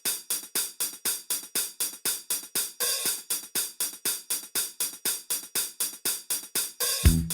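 A drum-machine beat of crisp hi-hat and cymbal ticks, about four strokes a second, with no bass. Near the end a deep bass line and fuller disco backing music come in.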